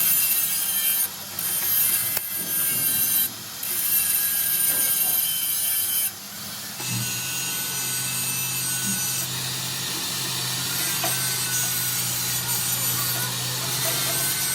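Metal being worked by hand or tool in three long rasping strokes, each a second or two. Then, about seven seconds in, a machine motor starts and runs with a steady hum under a continuing hiss.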